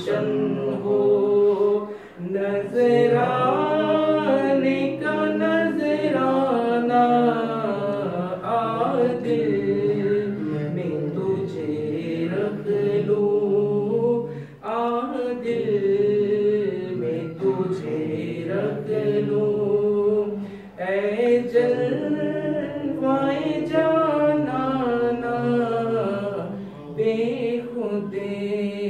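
A man singing a naat, an Urdu devotional poem, unaccompanied into a microphone. He sings in long, wavering phrases with a brief pause about every six seconds.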